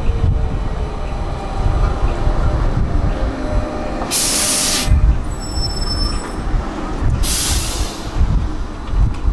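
Tram pulling in alongside and slowing: steady low rumble of wheels on the rails, with two loud bursts of hiss about four and seven seconds in and a high thin squeal between them.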